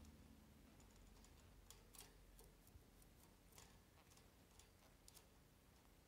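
Faint, irregular clicks from a male canary's laboured breathing over near silence, several in quick pairs: the respiratory distress of a mycoplasma infection.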